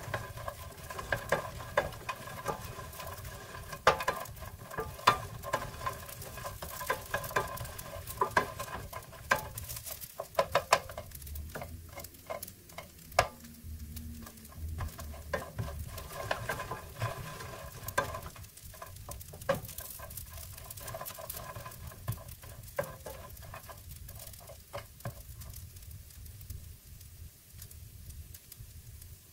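Wooden spatula stirring and scraping toasting baguette cubes around a ceramic nonstick skillet: a busy clatter of dry bread pieces tapping and sliding on the pan over a light sizzle. The stirring stops near the end, leaving the faint sizzle.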